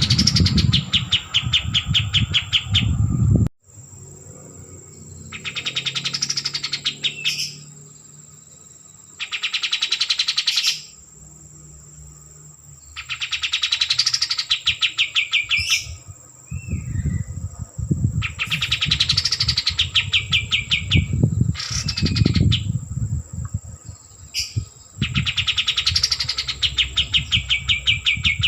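A kapas tembak, a bulbul, singing loud, fast trilling song phrases, each about two seconds long, repeated every three to four seconds. A low rumble sits under the song at the start and again about two-thirds of the way through.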